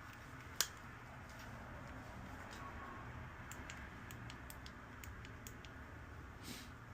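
Small clicks and ticks from handling a key fob remote while its battery is fitted: one sharp click about half a second in, then a scatter of faint ticks a few seconds later and a brief rustle near the end, over a low steady hum.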